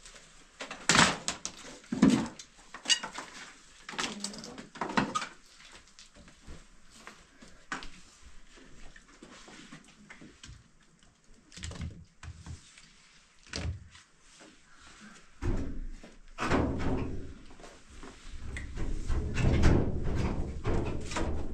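Scattered knocks and thuds, then a low scraping rumble that grows louder near the end.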